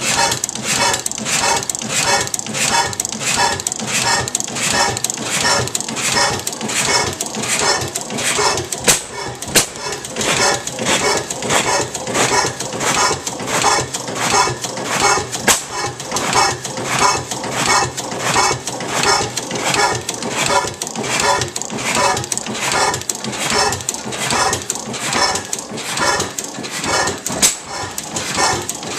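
6 HP Otto sideshaft hit-and-miss gas engine running, clacking in a steady rhythm of about three beats every two seconds, with a few louder beats.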